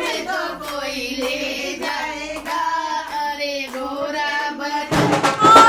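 A woman's voice singing a slow, wavering melody with long held notes and almost no accompaniment. Near the end, music with drums comes in, louder.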